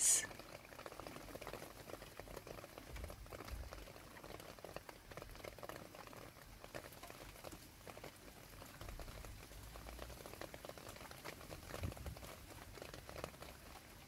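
Light rain falling into a shallow puddle on paving: a soft, dense patter of small drop ticks.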